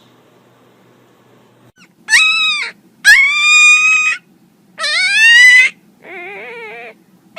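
A pet giving four drawn-out, high-pitched whining calls, each rising in pitch. The last call is quieter, lower and wavering.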